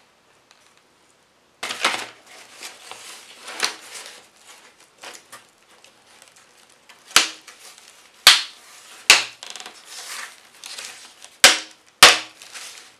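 Clear hard-plastic pencil case being handled and opened: rustling and scraping of plastic against cardboard, with several loud, sharp plastic snaps in the second half, the loudest sounds.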